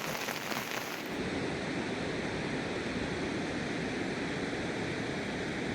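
Rain pattering with sharp drop ticks; about a second in this changes to a steady, deep rush of running water.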